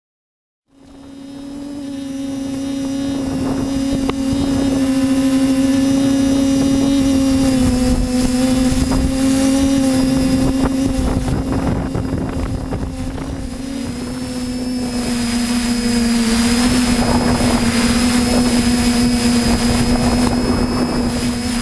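A motor or engine running steadily with a strong, even hum, cutting in about a second in and building up over the next couple of seconds.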